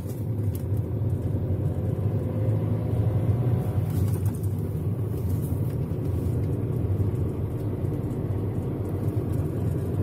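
A car driving on a smooth paved road, heard from inside the cabin: a steady low rumble of engine and tyre noise.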